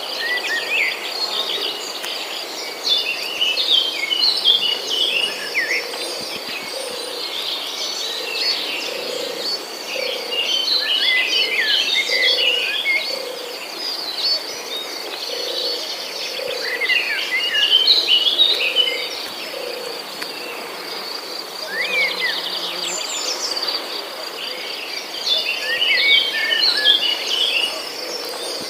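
Songbirds singing in bursts of quick chirps every several seconds over a steady, high-pitched drone of insects, with a low call repeating about once a second underneath.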